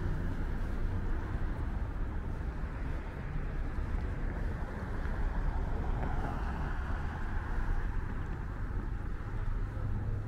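Road traffic on a wide city street: a steady low rumble of cars, with one vehicle passing more loudly about six to seven seconds in.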